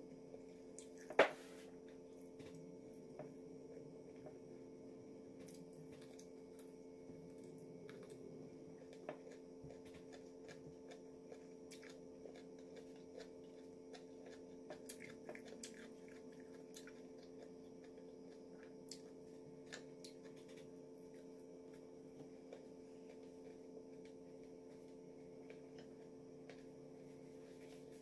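Quiet chewing and mouth sounds of someone eating macaroni, with scattered small clicks, over a steady low hum. A sharp click about a second in is the loudest sound.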